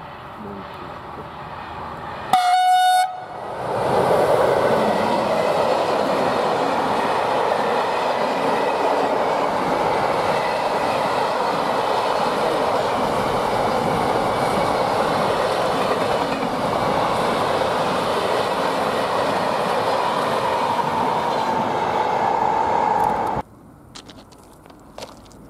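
An electric locomotive sounds one short horn blast about two seconds in. Then a long container freight train runs past close by, a loud steady rush of wheels and wagons on the rails, which cuts off abruptly near the end.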